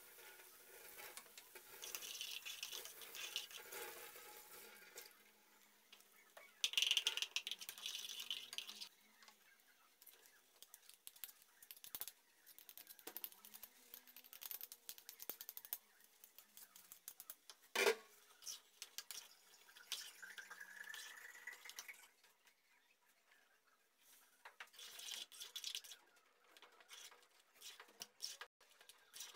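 Mashed potato being made in a small metal pot: potatoes tipped from a bowl into liquid in the pan, then stirred and mashed with a metal spoon, giving wet squelching, splashing and spoon-scraping sounds in bursts. One sharp knock of utensil on pot comes about two-thirds of the way through.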